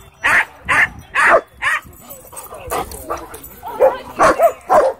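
A dog barking in quick runs, about two barks a second: four barks early on, a short pause, then four more near the end.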